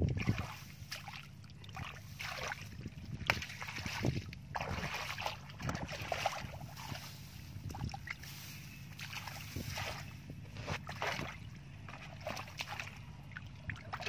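Hands digging through wet mud among grass clumps, a continuous run of irregular wet squelching and scraping noises.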